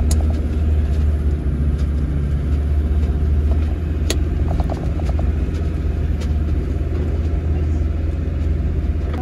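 Land Rover Td5's five-cylinder turbodiesel running as the vehicle drives off-road, a steady low rumble. About four seconds in there is one sharp knock, followed by a few light rattles.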